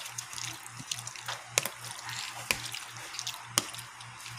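A spoon stirring squid pieces through thick, wet egg-and-flour batter in a plastic tub: soft wet squelching, with three sharp clicks of the spoon against the tub.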